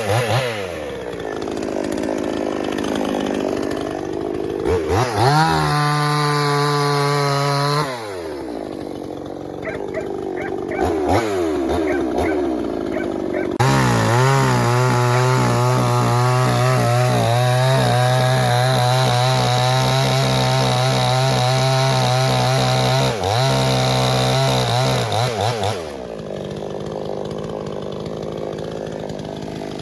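Two-stroke chainsaw idling and revving: a short burst at full throttle, a brief blip, then a long run at full throttle of about twelve seconds with one short dip, before it drops back to idle.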